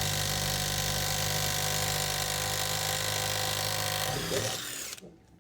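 Impact wrench running steadily on a wheel's lug nut, loosening it, then stopping about four seconds in.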